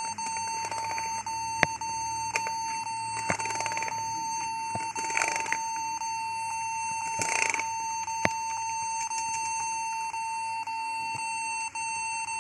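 Acer laptop beeping without pause during boot: one steady high tone, broken by short gaps every second or so, with keyboard keys clicking as they are pressed. The technician suspects a key on the keyboard reading as held down.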